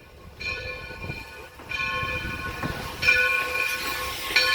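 A locomotive's whistle sounding a chord of steady tones in several successive blasts, the first starting about half a second in.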